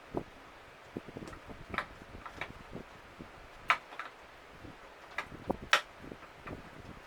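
Irregular clicks and knocks of tools and plastic parts being handled while the interior panel of a Samsung side-by-side refrigerator is unscrewed, with a few sharper clacks about halfway through and near the end.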